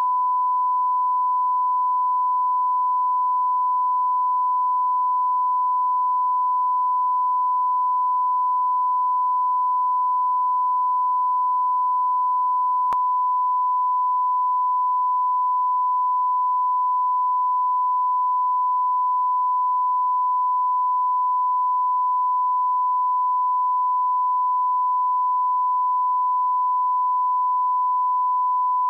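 Steady 1 kHz sine-wave test tone, a single pure pitch held unbroken at a constant level.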